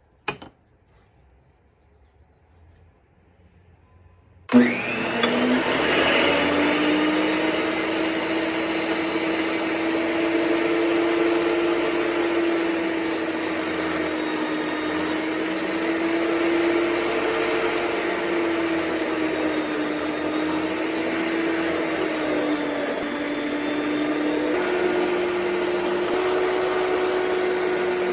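An electric power tool switches on about four and a half seconds in and runs steadily, its motor tone dipping slightly and recovering now and then.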